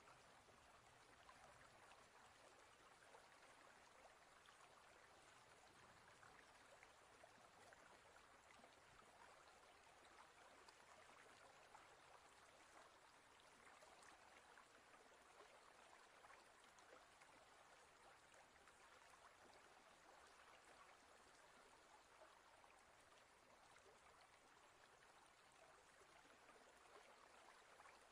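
Very faint, steady trickling and bubbling of aquarium water with small crackles, close to near silence.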